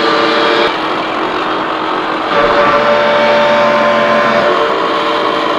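Lucas 441B-48 horizontal boring mill running with its 8-inch face mill turning, a loud steady machine sound with several steady tones. The tone changes about a second in and again past two seconds, as the machine's drives are engaged.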